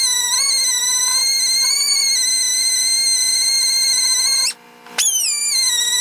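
Background music: a high, whistle-like electronic tone held with a slight waver. It breaks off briefly about four and a half seconds in and glides back in.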